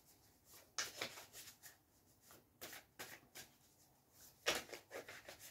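A deck of tarot cards being shuffled by hand, faint papery flicks and rustles of the cards coming in about three short bursts.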